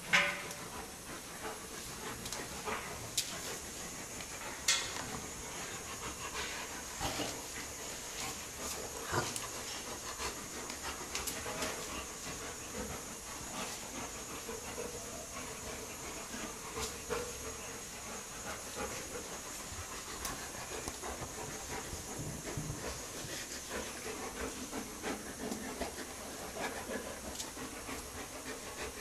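Two Bornean sun bears play-wrestling on a concrete floor: panting breaths and scuffling, with scattered knocks and a louder thump at the start and another about five seconds in, over a steady hiss.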